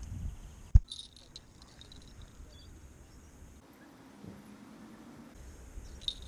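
A single sharp knock about a second in, followed by faint high jingles of small fishing-rod bite bells being handled, which come again near the end.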